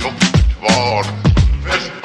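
Background music with a beat of deep kick drums that drop in pitch and sharp snare hits.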